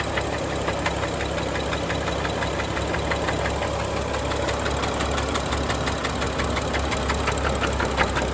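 BMW N55 turbocharged inline-six running steadily with a rapid, even ticking knock over its hum. The owner cannot tell whether it is rod knock or lifter noise and believes the engine may need replacing.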